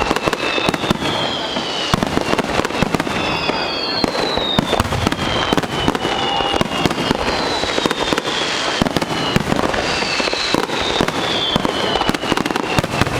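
Fireworks display: a dense, continuous crackle of many small bursts, with several high whistling tones that slide down in pitch over a second or two.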